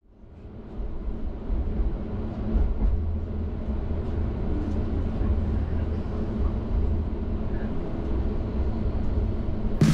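Tram running, a steady low rumble that fades in over the first second.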